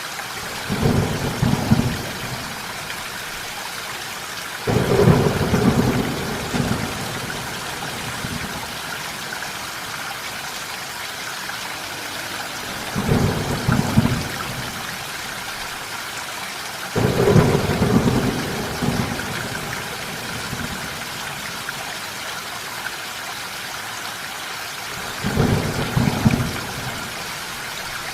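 Steady rainfall with thunder rumbling five times, each roll lasting a second or two and sitting low beneath the constant hiss of the rain.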